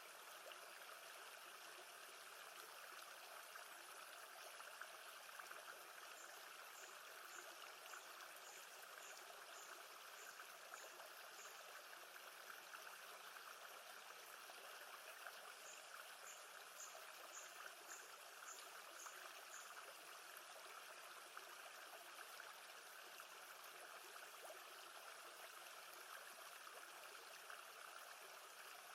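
Faint, steady rush of lake water. Two short runs of high, quick ticks, about two a second, sound over it early and midway.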